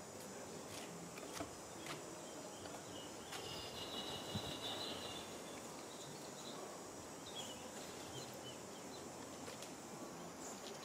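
Outdoor ambience of insects droning steadily at a high pitch, with a few short chirping calls about halfway through.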